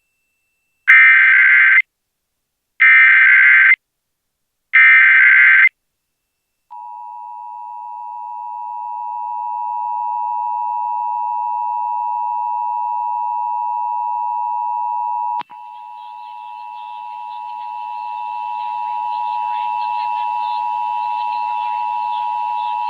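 Emergency Alert System test tones: three short bursts of SAME header data, then the two-tone EAS attention signal. The attention signal fades up and holds, cuts off with a click about two-thirds of the way in, then starts again, fading up over faint hiss.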